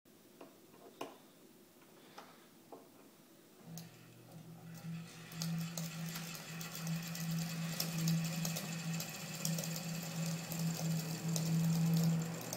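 A 1920s Ilg 20-inch exhaust fan starting up about four seconds in: its motor comes on with a steady hum and the fan spins up, growing steadily louder, with a fast rattling tick running over the hum.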